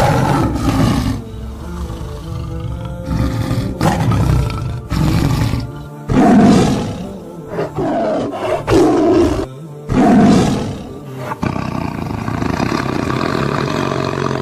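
Big cats roaring and growling, a series of loud calls with the strongest near the middle, over background music.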